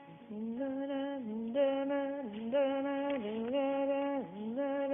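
Music: a slow, single-line melody of held notes that step and slide up and down between pitches, with no words.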